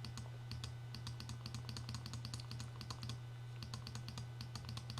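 Rapid, irregular light clicking at a computer, several clicks a second, over a steady low hum.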